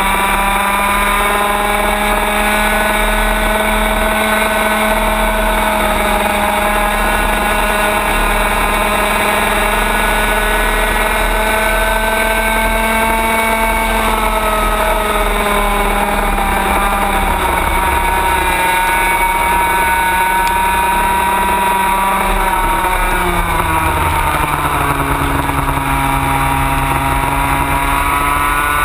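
Racing kart engine running at speed on a track. The note holds steady with slight dips, then drops sharply about three-quarters of the way through as the kart slows, and climbs again as it accelerates.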